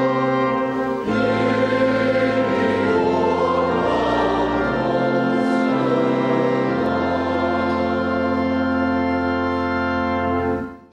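Congregation singing an Afrikaans hymn with organ accompaniment in slow, long-held chords, ending on a sustained final chord that cuts off just before the end.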